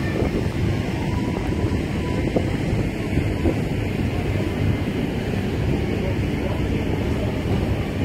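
Wind buffeting the microphone: a steady, gusting rumble heaviest in the low end.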